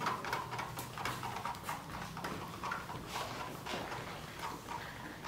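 A stir stick tapping and scraping against the sides of a plastic cup while clear epoxy resin and hardener are mixed, in light, irregular clicks several times a second.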